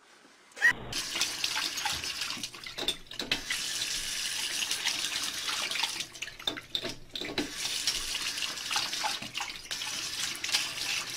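Water running from a bathroom sink tap and splashing into the basin, with a few sharp knocks and taps over it.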